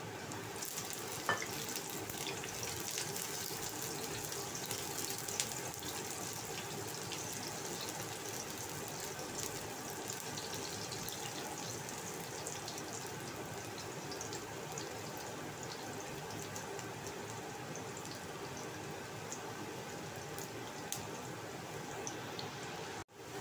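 Tempe strips frying in hot oil in a wok: a steady sizzle of bubbling oil, with a few sharp clicks of a spatula against the pan.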